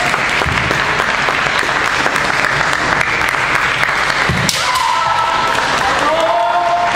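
Spectators clapping steadily in a sports hall, with one sharp knock about four and a half seconds in. After it come long, drawn-out shouts from the kendo fencers.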